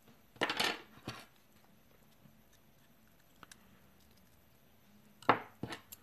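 Small metallic clicks and clinks from a lock cylinder being taken apart: tweezers and brass lock pins tapping against the housing and the pin tray. They come in two short clusters, one about half a second in and a louder one near the end.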